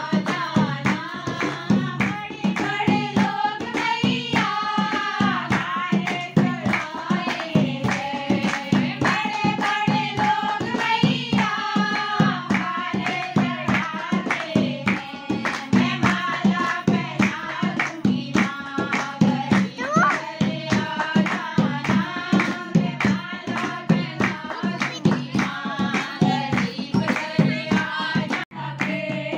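A group of women singing a devotional song (bhajan) in unison, keeping time with rhythmic hand clapping and a dholak drum beaten in a steady rhythm.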